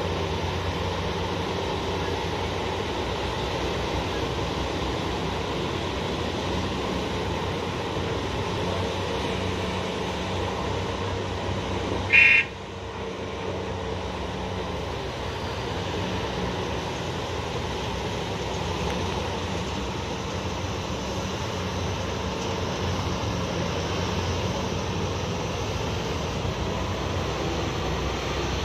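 Large diesel engines of a Komatsu HD785 mining haul truck and a PC2000 excavator running steadily. A short, loud horn toot sounds about twelve seconds in.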